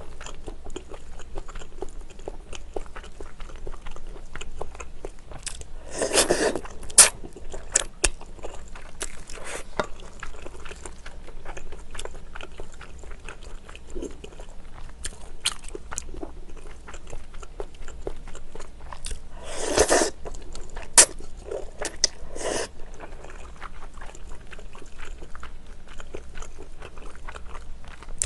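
Close-miked eating sounds: a person chewing soft Chinese glass noodles and kimchi-braised pork ribs, with louder slurps of the noodles about six seconds in and again around twenty seconds, and a few sharp clicks.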